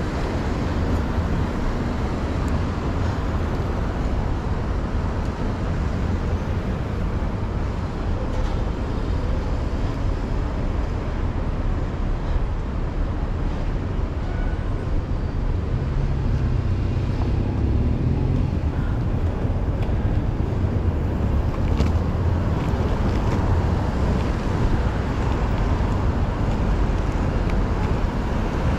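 City street traffic: a steady low rumble of cars passing through an intersection.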